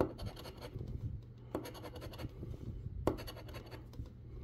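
Large metal coin scraping the scratch-off coating from a lottery ticket in rapid short strokes, with a few louder strokes about every second and a half.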